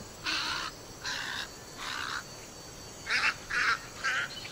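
Great egrets giving six short, harsh calls, three spaced out, then three in quicker succession near the end. These are aggressive calls as one egret chases a rival off its fishing spot.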